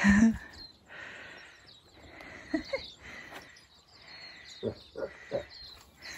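Pigs grunting: one loud low grunt at the start, then a few short, softer grunts near the middle and end. Under them, the swish of footsteps through long grass about once a second.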